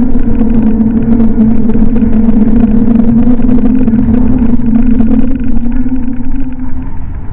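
A car horn sounding in one long steady tone that fades out near the end, over the low rumble of a car on the road.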